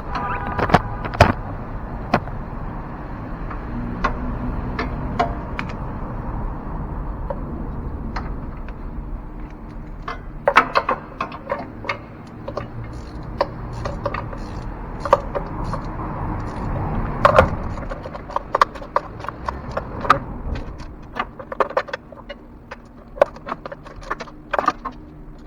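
Hand tools and parts clicking and knocking in a car's engine bay during reassembly, in scattered runs of quick clicks, over a steady low background hum.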